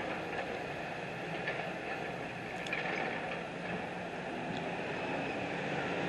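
Steady rumble of road vehicles going by, growing slightly louder near the end.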